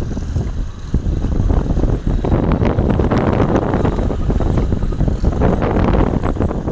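Motorcycle on the move, its engine noise mixed with wind buffeting the microphone in an uneven, rumbling rush.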